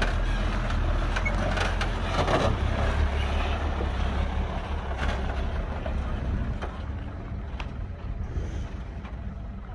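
Dump truck's diesel engine running steadily, a low hum with a noisy haze over it and a few clicks, fading somewhat over the second half.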